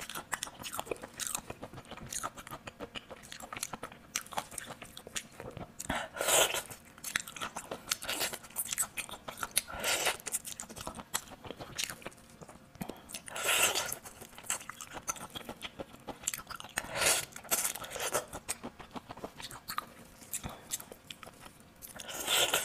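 Close-miked eating of raw soy-marinated shrimp: shells cracked and peeled by gloved hands, with biting, sucking and chewing. There are dense small clicks throughout and a louder burst every few seconds.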